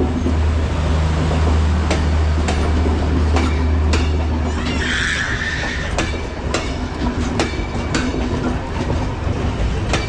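Passenger trains running side by side, steel wheels clattering over rail joints in an uneven series of sharp clicks. Under them runs a steady low engine drone that drops away about halfway, where a brief hiss sounds.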